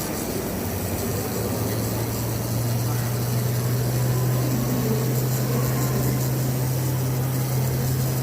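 Steady electric machine hum that starts about a second in and cuts off near the end, over a rumbling background.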